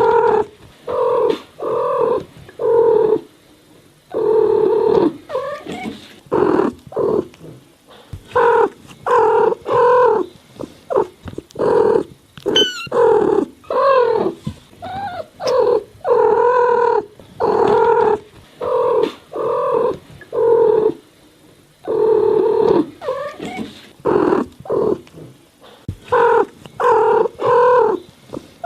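Cat meowing over and over: a long run of short meows, one after another with brief pauses between them.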